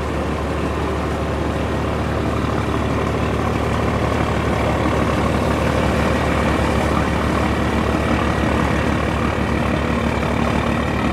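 Diesel engine of a large container-carrying cargo boat running steadily as the boat passes close by, a deep drone with a fast even thudding beat that swells a little midway. The filmer guesses the boat has two engines.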